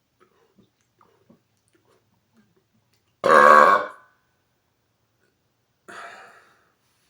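A man's deliberate, loud burp, a little under a second long, starting about three seconds in. A shorter, much quieter sound follows near the end, with faint small clicks before the burp.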